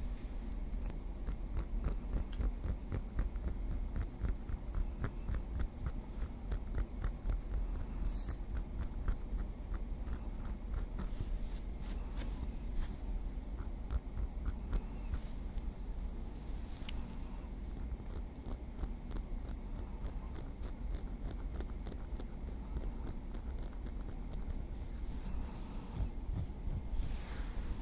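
Small wooden stick tapping and scratching lightly on a surface: a fast, continuous run of soft clicks and scrapes.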